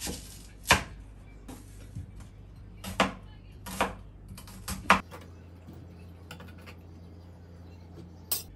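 Dishes and utensils being handled in a kitchen: about five sharp clinks and knocks at irregular intervals, the loudest one near the start.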